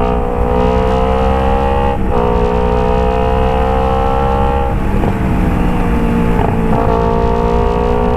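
Kawasaki Ninja 250 FI's parallel-twin engine through an aftermarket Phoenix exhaust, held at steady revs. The exhaust note briefly breaks and dips about two seconds in and again near five seconds.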